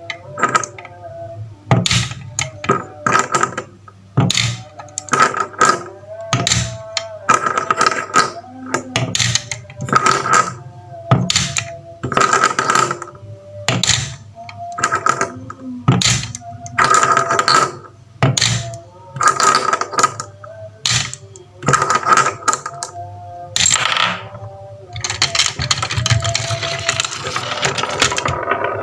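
Marbles clattering down a wooden marble run: a rapid, irregular series of clacks and knocks with short ringing tones. In the last few seconds it thickens into a dense, continuous rattle.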